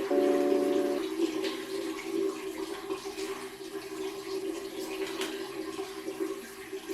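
Water running steadily, as from a tap. Soft background music holds a chord for about the first second.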